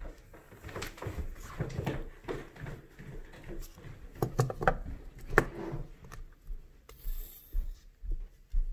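Fingers handling and rubbing a bead-embroidered piece on stiff Pellon backing, with irregular small scrapes and clicks as needle and thread are worked through it and the thread is drawn out.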